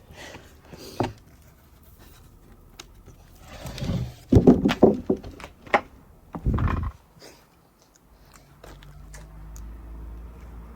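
Workshop handling noises: a sharp knock, then a burst of loud thuds and clatter as wood and tools are moved about, followed near the end by a low steady hum.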